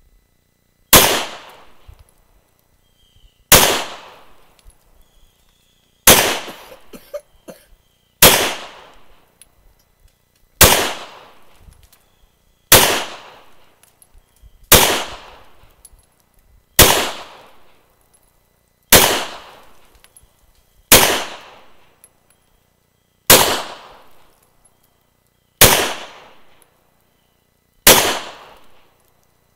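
Glock 23 Gen 3 pistol in .40 S&W firing thirteen single shots in slow, steady fire, about one every two seconds, each crack followed by a short echo that dies away.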